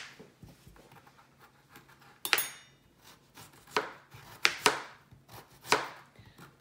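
A small kitchen knife slicing through a peeled raw potato held in the hand. About six sharp, irregularly spaced cutting clicks, starting about two seconds in, as slices drop onto a plate.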